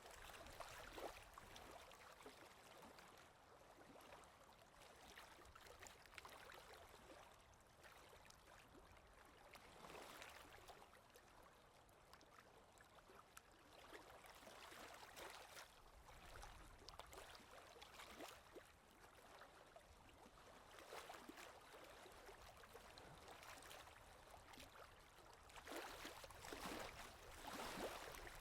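Faint, scratchy rubbing of oil pastels on paper, swelling with each stroke every few seconds.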